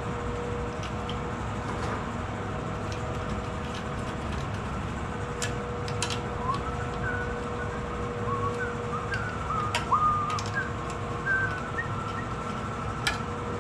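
Sharp clicks of small metal carburetor parts and bolts being handled and threaded by hand, over a steady hum. A few short chirp-like whistled notes come in the second half.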